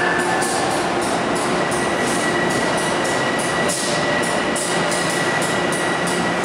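Amtrak Amfleet passenger cars rolling slowly past at arrival, a steady rumbling hiss that pulses about twice a second, with a thin high squeal from the slowing train that holds steady and then cuts off suddenly near the end.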